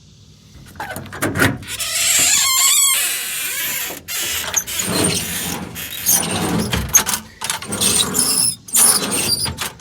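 Steel compartment of a truck service body being opened and its heavy-duty slide-out drawers pulled out: metal scraping, rattling and knocking, with a wavering squeal of metal on metal about two and a half seconds in.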